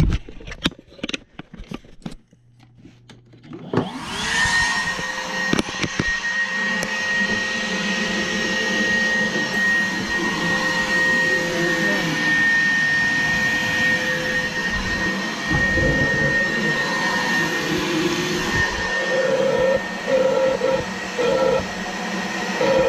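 A few handling clicks and knocks, then a vacuum switched on about four seconds in and running steadily with a high whine, drawing on a clogged furnace condensate drain line. Its tone wavers unevenly in the second half.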